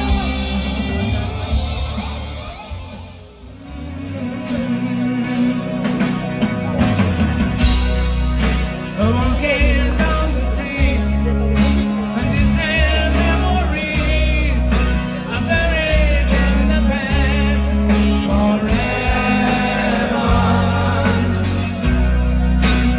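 Hard rock band playing live, heard from the crowd: drums, bass and electric guitars with a lead singer. The music drops away briefly about three seconds in, then comes back with a heavy steady beat and singing.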